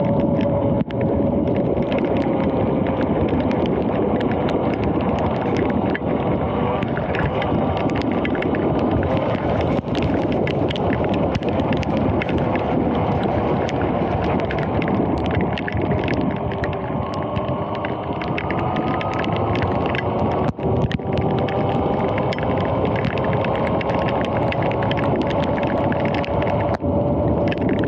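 Electric dirt bike ridden at speed on wet pavement in the rain: a steady rush of wind and wet-tyre hiss over a faint motor whine. The whine drops in pitch in the second half and then climbs again as the bike slows and picks up speed.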